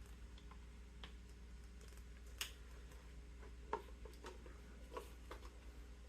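Faint, irregular clicks and taps of hands working the metal sweatband clips out of an M1 helmet liner, over a steady low hum.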